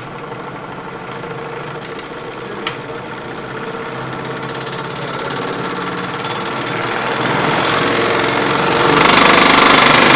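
DeWalt DW788 scroll saw running as its speed is turned up, its mechanism getting steadily louder and then suddenly much louder and harsher about nine seconds in. This is a noise the saw is not supposed to make: the owner traces the fault to the vertical rocker, where metal fragments show that something has come apart.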